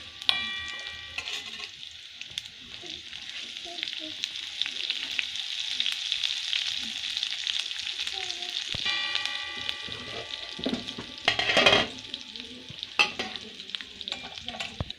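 Sliced garlic, whole dried red chillies and cumin sizzling in hot oil for a tadka, stirred with a metal spoon. The spoon scrapes the pan twice with a ringing squeal, the sizzle swells as chopped green chillies go in, and there is a brief loud burst of noise near the end.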